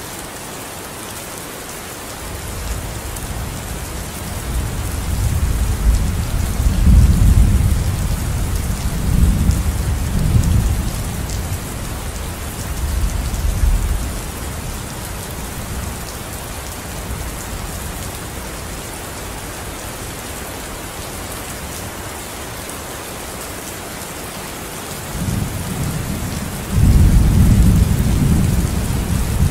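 Recorded rain-and-thunder soundscape: a steady hiss of rain with low rolling thunder. One long rumble swells from a few seconds in and fades out by about fourteen seconds, and another builds near the end.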